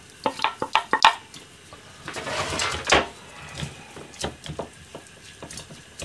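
Wooden spatula scraping and knocking fried onions out of a frying pan into a stainless steel bowl, with a quick run of knocks in the first second and a louder scraping clatter about three seconds in. After that, softer clicks as the hot onions are mixed into raw ground meat by hand in the metal bowl.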